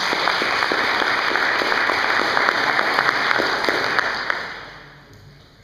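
Audience applause: many hands clapping in a dense, steady patter that dies away over the last second.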